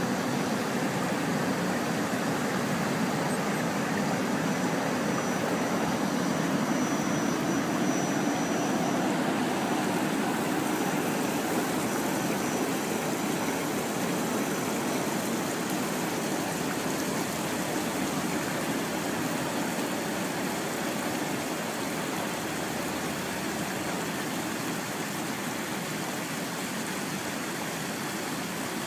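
Steady rush of flowing creek water. A faint high steady whine runs through the first half and fades out.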